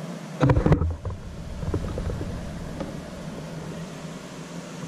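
Camera handling noise: a loud low thump and crackle about half a second in, then a steady low rumble as the camera is moved.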